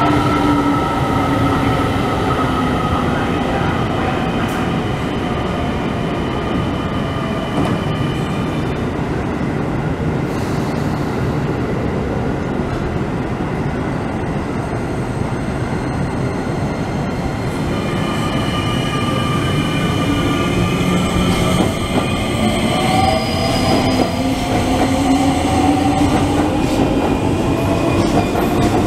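Keio 8000-series electric multiple unit pulling out of a station: from about 18 seconds in, its traction motors and inverter give a whine that rises in pitch as the train accelerates, with wheels running over the rails. Over the first several seconds a whine falls in pitch.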